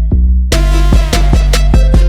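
Electronic background music with a heavy bass and a drum-machine beat; the high end drops out briefly, then a cymbal-like crash comes in about half a second in.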